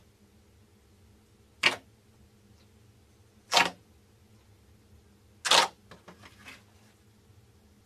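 Clear slime pressed and squeezed by fingers, letting out three sharp pops about two seconds apart as trapped air bursts. Faint small crackles follow the third pop.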